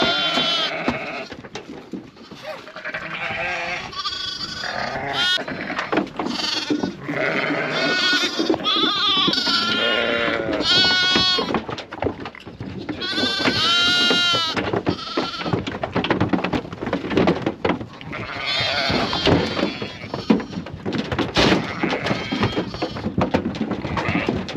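Ewes and young lambs bleating, many overlapping wavering calls as they are let out of a livestock trailer and call to find each other, with scattered knocks from the trailer's ramp as they come down it.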